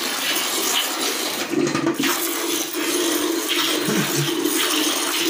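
Milk squirting from a cow's teats into a pail during hand milking, a steady hissing rush of streams hitting the milk.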